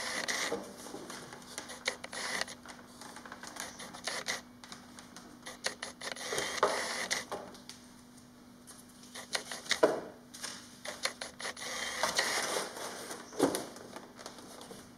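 Hands handling and fitting together the foam parts of an X-UAV Clouds RC plane airframe on a table: irregular clicks, knocks and short scraping rustles, with a few louder knocks.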